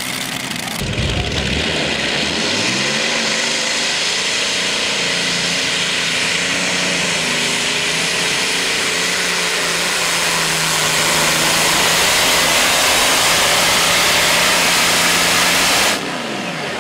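Engine of a modified tractor-pulling tractor under full throttle while it pulls the weight sled, with a loud exhaust roar. The engine revs up about two seconds in, holds high revs, and cuts off suddenly near the end.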